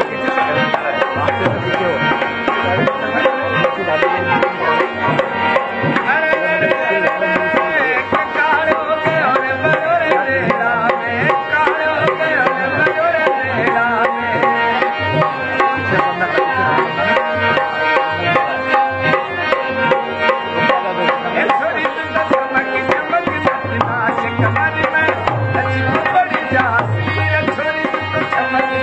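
Rajasthani folk music on a dholak and a harmonium: the dholak beats a quick, steady rhythm under the harmonium's sustained melody.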